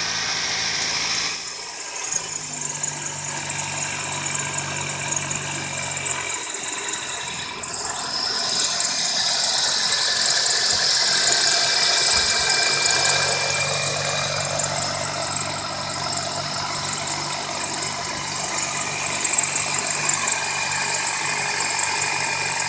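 2001 Toyota Corolla engine running on a cold start with a high-pitched chirping squeal from the accessory drive, which grows louder about eight seconds in. The owner suspects the drive belt or belt tensioner, or a failing pulley.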